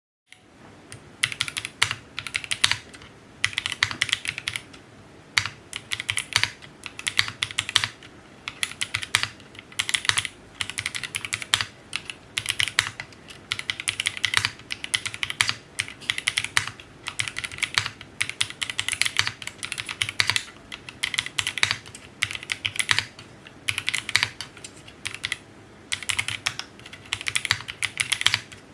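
Typing on an M71 mechanical keyboard fitted with hand-lubed NovelKeys Cream linear switches: runs of quick keystrokes in bursts of about a second, with short pauses between.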